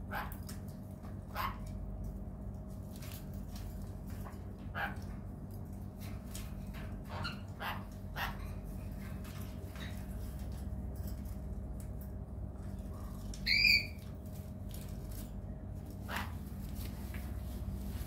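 Caged pet parrots (sun conures and a cockatiel) giving short calls now and then, with one loud squawk about three-quarters of the way through, over a steady low hum.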